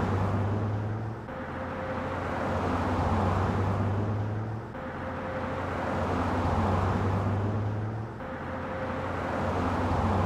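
A pickup truck drives past, its engine and tyre noise swelling and fading over a steady low hum. The same few-second pass is looped, so it swells and fades about every three and a half seconds, three times over.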